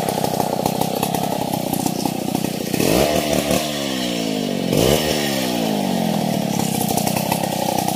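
Two-stroke chainsaw running at high speed while cutting a felled log, revving up sharply twice, about three and five seconds in, then dropping back in pitch each time.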